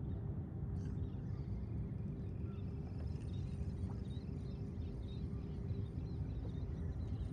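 Steady low outdoor rumble with a faint steady hum, and faint high chirps scattered through the second half.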